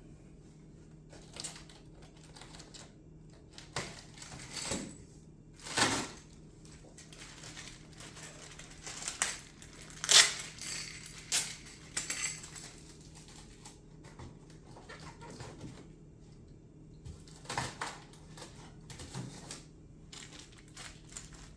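Parts and packaging being handled: scattered light clicks and knocks of small hard pieces set down and moved, with short rustles of plastic bags and packing. The sharpest click comes about ten seconds in, and a faint steady hum runs underneath.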